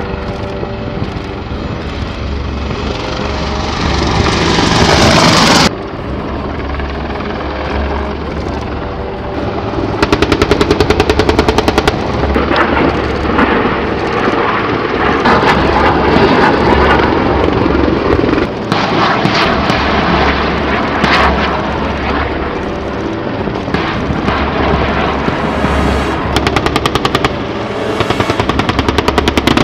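AH-64 Apache attack helicopters, their rotors and turbines running as a steady low drone. A rising rush of noise swells about four seconds in and cuts off suddenly. Bursts of rapid automatic gunfire come in at about ten seconds and again near the end.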